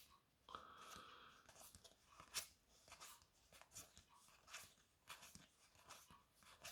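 Faint, irregular clicks and rustles of Pokémon trading cards being handled and flipped through one by one in a stack, roughly one click every half second to a second.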